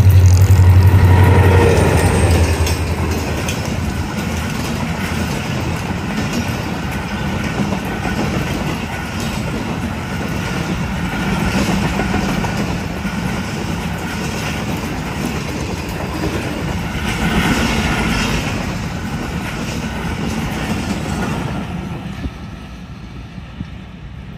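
Diesel-electric locomotive of an express passenger train passing at speed, its engine loud and low for the first two or three seconds. Then a long rake of passenger coaches runs past with steady wheel-and-rail noise that swells a few times, and drops away near the end as the last coach goes by.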